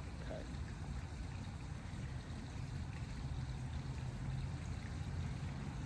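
Steady low outdoor rumble with a faint even hiss and no distinct events.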